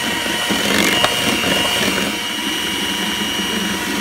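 Electric hand mixer running steadily, its twin beaters whipping coconut cream in a stainless steel bowl, with one sharp tick about a second in.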